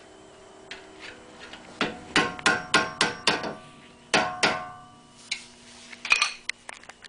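Hand hammer striking metal, with a ringing tone after each blow. There is a quick run of about six blows, two more a moment later, then a few lighter taps near the end.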